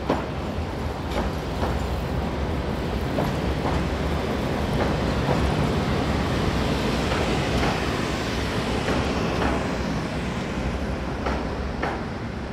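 Articulated tram rolling past on street track: a rumble that builds as it comes closer and fades as it moves away, with clacks from the wheels over the rail joints about once a second.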